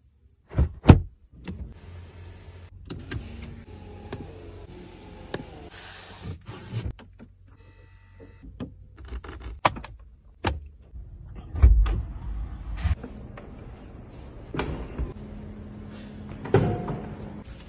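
Clicks, knocks and the whir of small electric motors as a Mercedes-Maybach S580's powered features are worked, with a sharp knock about a second in. Near the end a steady low hum sets in as the power boot lid opens.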